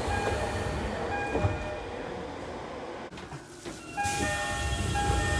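Train door chimes and platform screen door chimes sounding over each other out of tune, short repeated electronic chime tones over the low rumble of a train at the platform. After a sudden drop about three seconds in, a second set of chimes of several clashing pitches starts about four seconds in.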